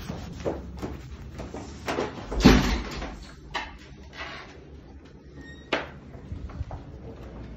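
A building's entrance door being pushed open and swinging shut: a run of knocks and clunks, the heaviest thump about two and a half seconds in, mixed with rustling and footsteps.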